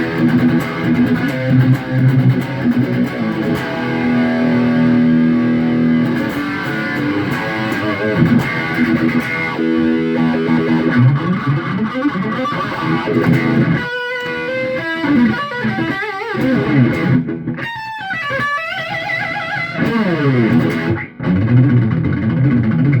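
Epiphone SG electric guitar with twin humbuckers, played through a Marshall JCM 2000 DSL tube head on a distorted channel: sustained chords and single notes with a few brief stops, and a run of quick high notes near the end.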